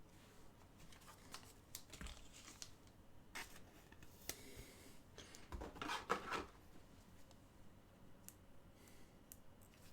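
Faint handling of trading cards: soft rustles and scattered light clicks as cards are sorted and slid against each other, with a slightly fuller rustle about six seconds in.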